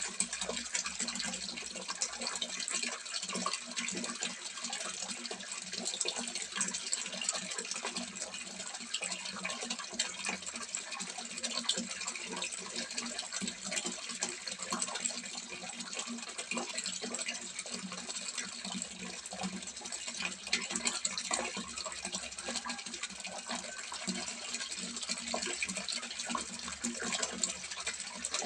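Water from a small pond spout splashing steadily into a fish pond, a continuous dense patter.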